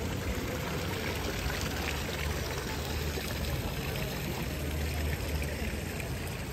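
Water from the Fontana del Pantheon's stone fountain spouts splashing and trickling steadily into its basin.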